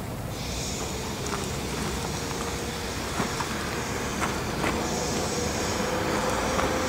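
Steady background rumble with an even hiss, a faint steady hum joining about halfway through, and a few faint clicks.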